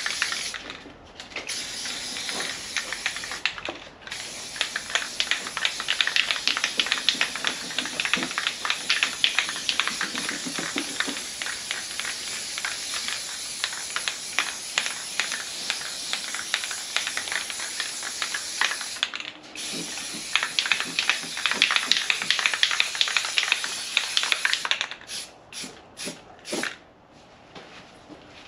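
Paint being sprayed: a long, steady hiss that breaks off briefly a few times, then comes in a few short bursts near the end before it stops.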